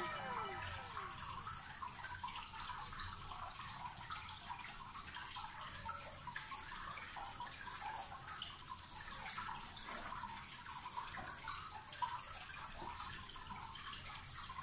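Faint room hiss with scattered light ticks and clicks from a smartphone being handled and tapped.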